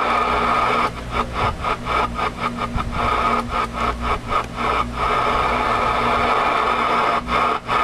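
Receiver static hissing from a Galaxy DX-979 CB radio's speaker as the channel selector is turned, the noise dropping out briefly many times in the first five seconds and again near the end. No station comes through the static: there is no skip on the band.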